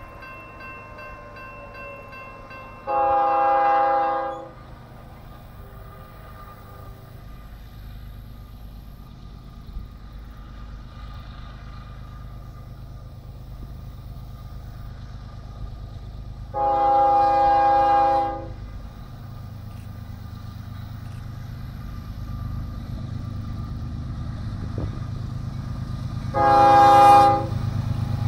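Air horn of an approaching CSX freight train's lead diesel locomotive sounds two long blasts several seconds apart, then a short one near the end. Underneath, the low rumble of the locomotives and train grows steadily louder as it nears.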